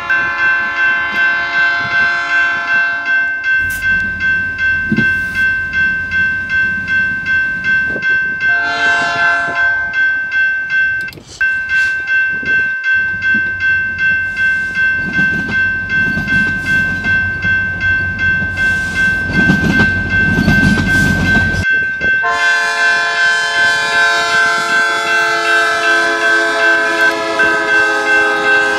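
Diesel train sound effects for a model freight train: long train-horn blasts near the start, a short one about nine seconds in, and a long one again from about twenty-two seconds on. Under them runs a steady high tone with an even pulsing rhythm, and a low engine rumble that cuts off suddenly just before the last horn.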